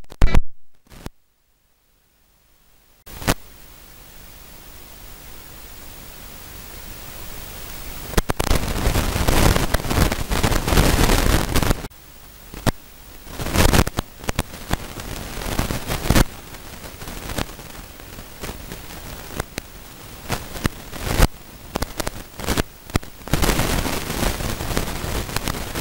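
Near silence for the first few seconds, then a rising hiss of static-like noise broken by frequent loud crackles and bursts, with no speech.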